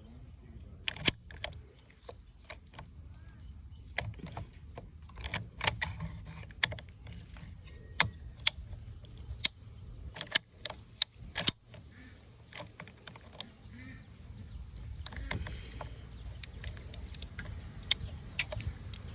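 Ratcheting PVC pipe cutter clicking as its handles are squeezed over and over to step the blade through a PVC water pipe: sharp irregular clicks, about one or two a second, that stop about eleven seconds in, followed by fainter handling sounds.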